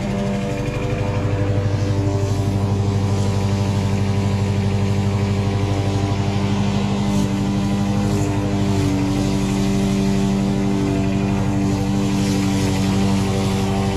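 Walk-behind petrol lawn mower engine running at a steady speed while the mower stands still, not cutting.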